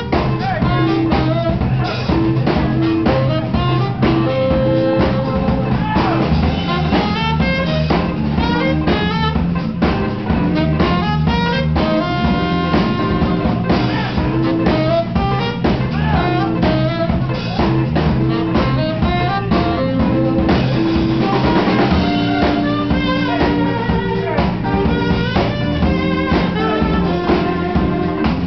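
Live jazz band playing: saxophones holding and moving through melody notes over a busy drum kit and an electric bass line.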